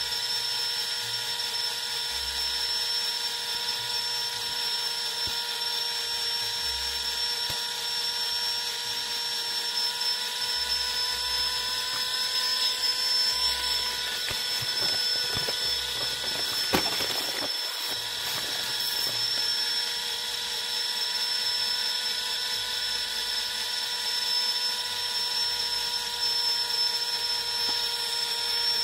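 Steady high whine of a small electric motor. A brief rustle and a sharp click come a little past halfway.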